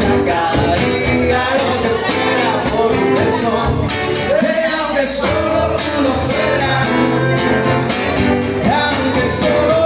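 Acoustic guitar strummed in a steady rhythm in a live solo performance, with a man's voice singing briefly without clear words about four seconds in and again near the end.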